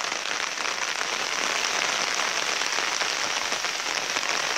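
Heavy rain falling steadily, an even hiss of countless drops.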